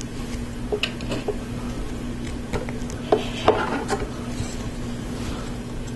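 Plastic LEGO Technic parts handled and pressed together, with friction pins pushed into a lift arm. Scattered small clicks and rubbing, loudest a little past the middle, over a steady low hum.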